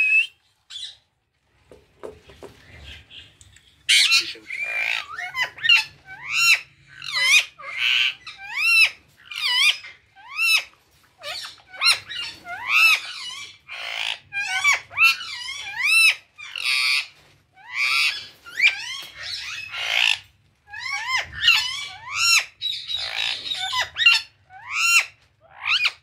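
Indian ringneck parakeets giving a long series of short, arching squawks, about one to two a second, starting about four seconds in.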